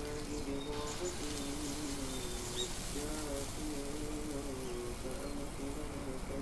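A man's voice chanting in long, wavering melodic phrases, in the style of Quran recitation, with faint high bird chirps.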